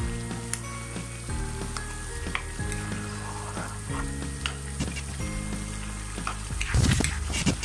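A spatula stirring a bubbling fish and potato curry in a pan: the broth sizzles while the spatula clicks and scrapes against the pan, loudest near the end.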